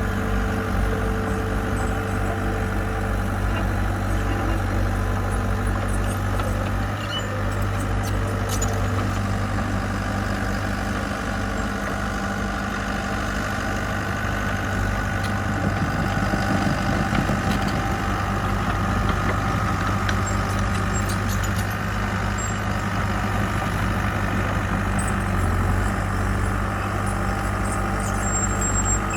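Diesel engine of a heavy construction machine running steadily, a low even hum that holds the same pitch throughout.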